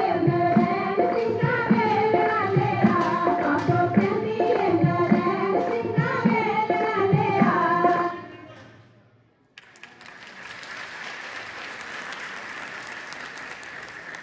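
Punjabi folk song, with singing over a steady dhol beat, fading out about eight seconds in. After a brief gap, an audience applauding.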